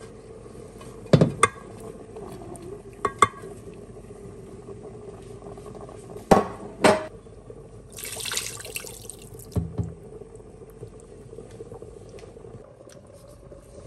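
A utensil knocking against a cooking pot several times, mostly in quick pairs, with a brief hiss about eight seconds in, over a faint steady hum.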